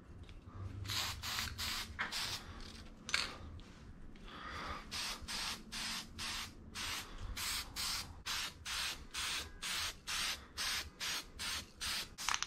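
Aerosol spray-paint can sprayed in many short hissing bursts, a few at first, then a steady run of about two to three a second. The can is spraying poorly, its nozzle prone to clogging.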